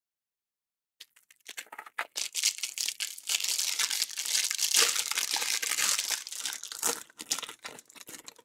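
Plastic wrapper of a baseball card hanger pack crinkling and tearing as it is ripped open by hand, a dense crackle that starts about a second in.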